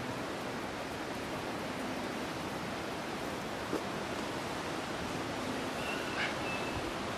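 Steady rushing wind noise, with a brief high-pitched chirp about six seconds in.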